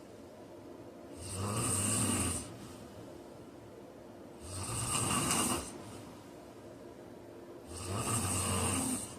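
A sleeping man snoring: three long, rhythmic snores, each lasting just over a second, about three seconds apart.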